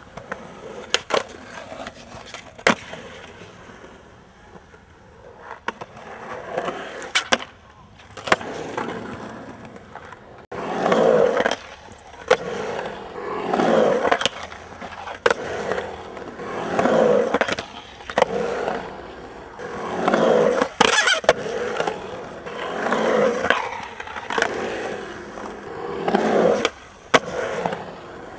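Skateboard on concrete: wheels rolling with sharp clacks of the board hitting the ground. In the later part the wheel rumble swells and fades about every three seconds as the skater rides back and forth through a concrete bowl, with more clacks at the top of some passes.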